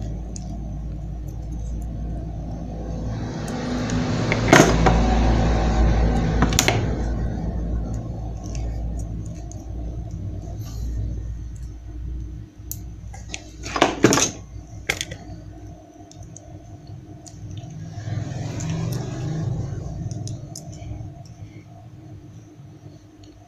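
Handling noise from fitting a diac's leads into a perfboard with pliers: scattered sharp clicks and knocks, the loudest about halfway through, over a steady low background rumble.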